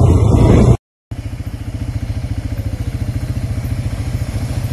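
Honda ATV engines. First a loud engine while riding, which cuts off abruptly under a second in. After a brief gap, quad-bike engines run at low speed with an even, rapid low chugging.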